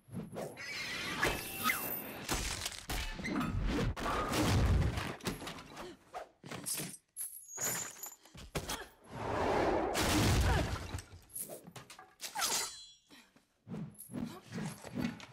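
Film fight sound effects: a chained meteor hammer crashing into wooden furniture, with smashing and shattering, heavy thuds and chain clatter. There are two long stretches of crashing, one in the first five seconds and one around ten seconds in, and a quick rattle a little later.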